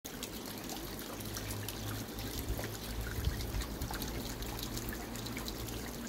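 Water trickling down a wet rock face: a steady splash with many small scattered drips.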